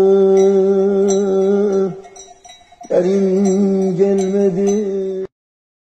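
A man singing an unaccompanied uzun hava, the Turkish free-rhythm folk lament, in long held notes. He drops off for a breath about two seconds in, takes up a held, wavering note again a second later, and the sound cuts off suddenly near the end. Faint high clinks sound through the singing.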